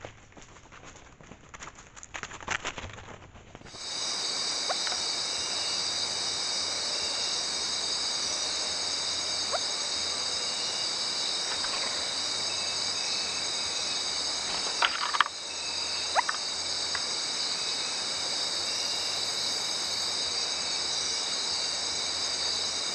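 Faint rustling and light ticks in dry leaf litter, then, about four seconds in, a loud steady high-pitched drone of night insects in tropical forest, with a few short sharp calls breaking through it.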